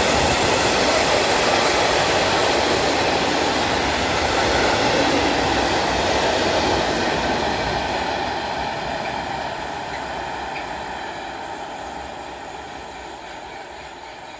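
A freight train of open coal wagons rolling past, a steady noise of wheels running on the rails. Over the second half it fades steadily as the end of the train passes and moves away.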